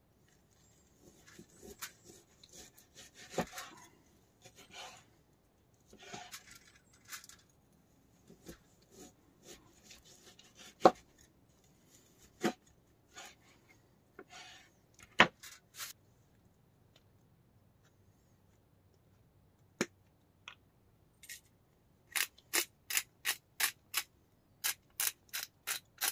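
Rubbing and scraping of something being handled, with scattered sharp knocks. Near the end comes a quick, even run of sharp taps, about three a second.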